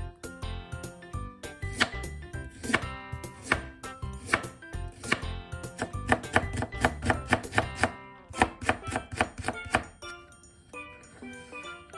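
Knife chopping on a cutting board in quick repeated strokes, over background music. The strokes come fastest and most evenly in the second half.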